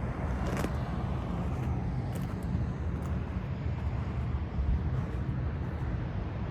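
Steady low outdoor rumble with a few faint clicks, about half a second in and again around two to three seconds in.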